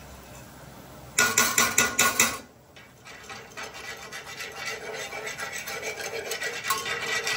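A utensil stirring and scraping in a sauté pan as butter is worked into a white wine reduction. A run of quick, loud strokes comes about a second in, then quieter, rapid rubbing strokes.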